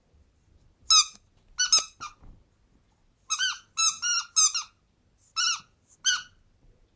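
A dog biting down on a rubber squeaky donut toy, making about nine short, high squeaks in irregular runs.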